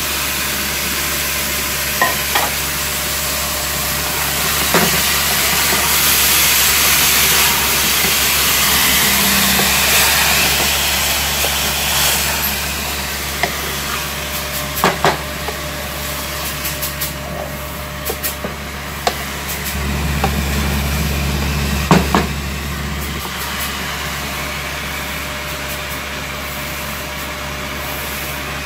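Freshly washed minced meat sizzling in hot oil in a pot. It is stirred with a wooden spatula that knocks and scrapes against the pot now and then.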